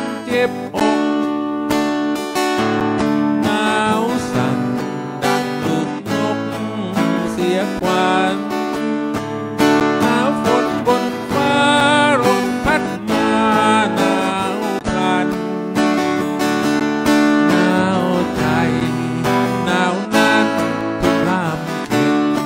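A man singing a slow song while strumming a steel-string acoustic guitar.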